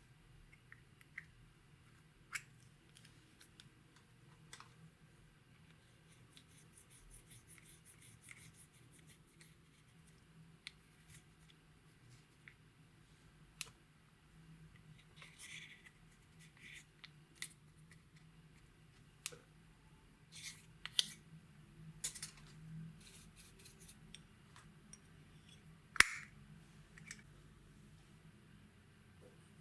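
Slime being worked by hand: scattered sticky clicks and small crackling pops, with one sharp click near the end the loudest.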